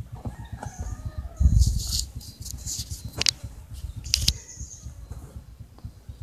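Cats eating dry cat food from a small container: kibble rattling and crunching in short clicky bursts, with two sharp clicks about three and four seconds in. Under it runs a low, uneven rumble, loudest about a second and a half in.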